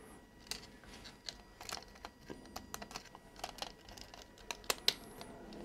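Faint, irregular small clicks and ticks of a small Phillips screwdriver and screw against a plastic slot-car body as a screw is lined up and started by hand, with two louder clicks near the end.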